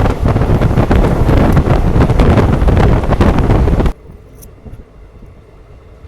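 Loud rushing noise of a moving train with wind buffeting the microphone, cutting off abruptly about four seconds in to a much quieter background.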